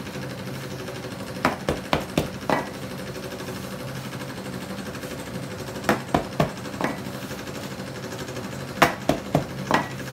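A round metal wrapper cutter knocking on a floured counter as gyoza wrappers are stamped out of a sheet of dough: three quick runs of four or five taps, over a steady low hum.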